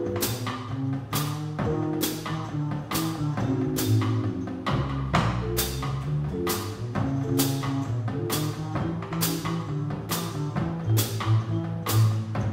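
Live small band playing instrumentally: a drum kit keeps time with a cymbal struck about twice a second, over changing notes from an upright bass and a keyboard.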